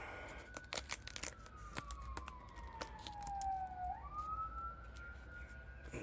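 A siren wailing slowly down and up in pitch, heard over a scatter of sharp crackles and clicks from tape and metal being handled.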